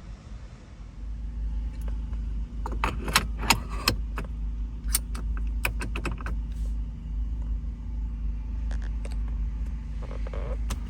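Toyota MR2's engine running steadily with a low rumble that comes up about a second in. A cluster of sharp clicks and metallic jangling, like keys, sounds for a few seconds over it.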